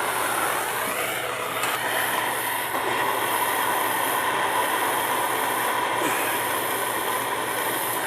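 Plumber's soldering torch flame burning steadily, a continuous even hiss, while heating a copper pipe joint for lead-free solder.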